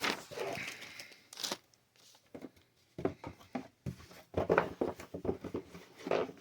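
Cardboard and paper rustling, with a few sharp knocks, as a board game's box, board and components are handled and moved.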